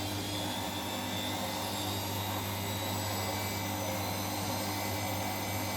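Siemens front-loading washing machine on its final spin, its drum and motor running at a steady hum on a silk programme set to 600 RPM.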